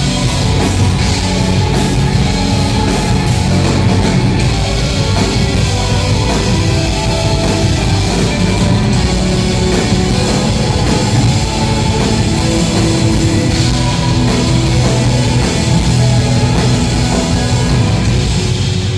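Instrumental post-rock band playing live at full volume: drum kit, distorted electric guitars, bass and keyboard together in a dense, steady wall of sound.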